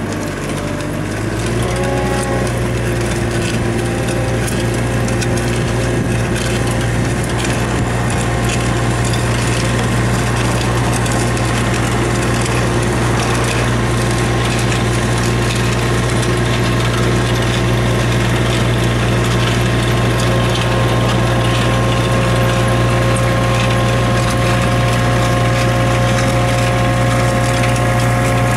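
Knikmops 130 mini loader running steadily while its batching bucket meters sand out of its spout, a constant mechanical clatter over the engine's steady hum. The engine's pitch rises about a second in and then holds.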